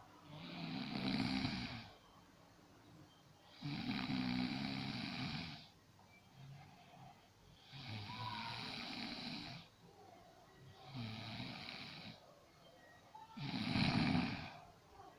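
A woman snoring loudly, five snores about three seconds apart, each a rough rattling breath lasting one to two seconds.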